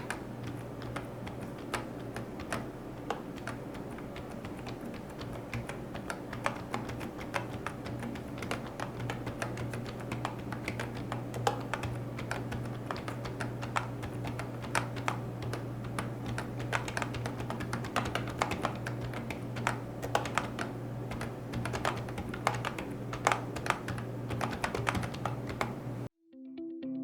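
Rapid, continuous typing on a keyboard: a dense, uneven stream of key clicks that cuts off suddenly near the end.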